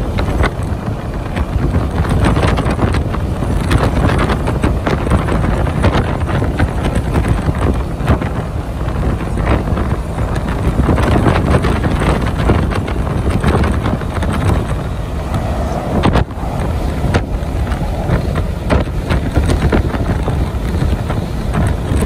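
Wind buffeting the microphone in gusty, irregular thumps at an open window of a moving truck, over steady road and engine noise.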